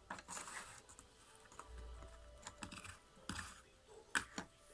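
Irregular light clicks and taps as chilled homemade shampoo-and-soap slime is handled, with a few sharper clicks about a second in, past three seconds and near the end.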